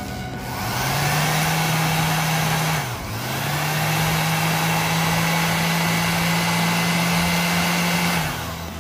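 Hasston 3135-001 electric orbital sheet sander running freely in the hand, not on a workpiece, with a steady motor hum. It spins up about a second in, drops out briefly around three seconds in and comes back up, then runs steadily until it winds down near the end.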